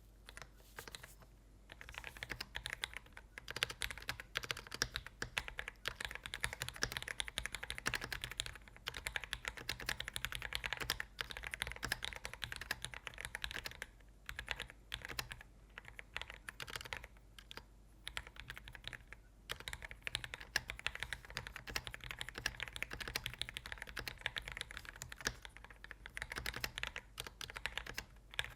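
Typing on a Dark Project x AKKO 5075 mechanical keyboard: a rapid, continuous stream of keystroke clicks, starting about a second and a half in, with a few short pauses.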